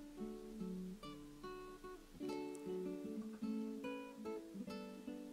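Quiet background music on acoustic guitar, with notes plucked one after another in a flowing tune.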